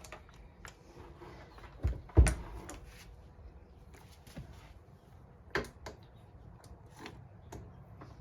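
Scattered clicks and knocks of hand tools on metal engine parts, with two louder knocks about two seconds in and another about five and a half seconds in.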